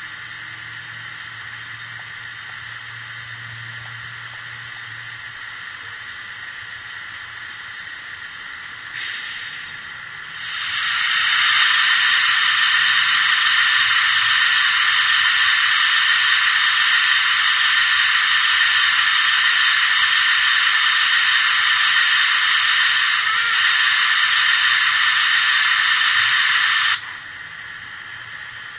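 Märklin BR 01 model steam locomotive's sound decoder playing a steam hiss through its small speaker: a short puff about nine seconds in, then a loud, steady hiss that holds for about sixteen seconds and cuts off suddenly near the end.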